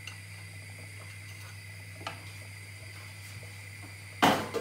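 Steady low electrical hum with faint clicks near the start and about two seconds in. About four seconds in comes a loud, brief rustling burst.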